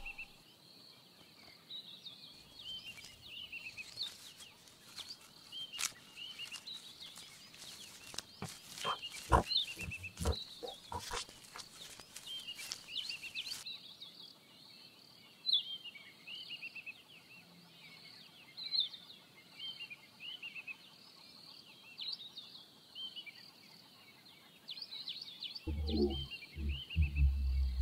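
Small birds chirping and trilling over quiet outdoor ambience, with a cluster of short sharp clicks in the middle. Near the end a louder, low pulsing grunt starts.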